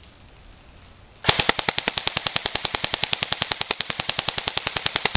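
Airsoft electric gun, an Echo1 TFB MP5A4, firing a long full-auto burst: a rapid, even train of sharp clicks, about a dozen a second, starting a little over a second in.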